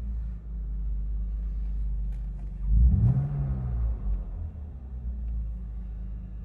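BMW M Coupe straight-six through a Supersprint exhaust, idling, then blipped once about three seconds in: the revs climb quickly and fall straight back to idle.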